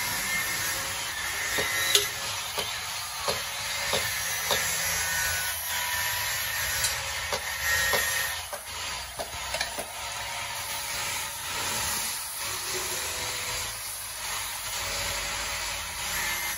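Water poured from a kettle sizzling on the hot steel of a ram dao blade as it is quench-tempered, with scattered sharp clicks and knocks, mostly in the first half.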